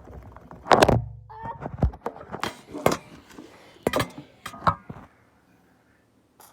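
Slime being squished and stretched in the hands, giving a run of wet clicks and pops from trapped air, with a louder squelch about a second in; it stops about five seconds in.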